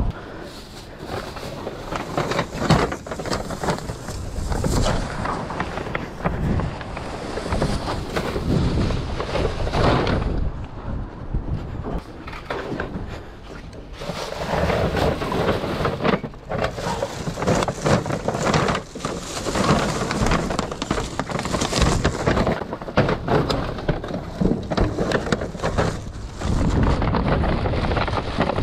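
Plastic trash bags and packaging rustling and crinkling as discarded goods are rummaged through, with irregular knocks and clatter of items being handled.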